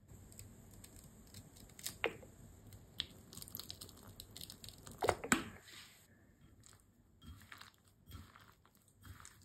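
Raw chicken pieces being worked by hand with dry spice powders in a ceramic bowl: irregular squishing and gritty scraping, with a few louder clicks and scrapes about two and five seconds in.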